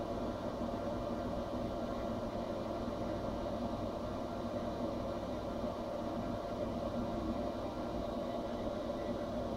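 Small hobby CNC machine running with a steady, even hum and rumble that holds unchanged throughout.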